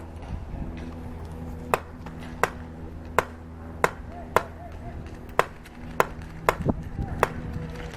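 Airsoft guns firing single shots: about ten sharp pops, irregularly spaced up to a second apart, starting nearly two seconds in. Under them runs a steady low mechanical hum.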